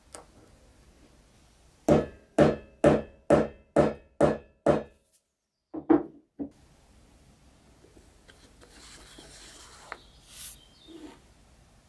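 A hammer striking the top of a thin metal axle rod standing on a wooden workbench, seven quick blows about twice a second, then after a short break two more, driving an axle cap onto the rod's end. Softer rubbing and a knock follow as a plastic wheel is worked onto the axle.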